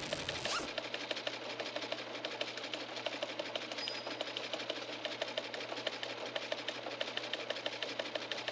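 Rapid, steady mechanical clicking, many even clicks a second. A whoosh ends about half a second in.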